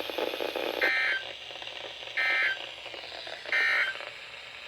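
NOAA Weather Radio EAS/SAME end-of-message data bursts: three short, harsh two-tone digital squawks about 1.35 s apart over receiver hiss. They mark the end of the alert message.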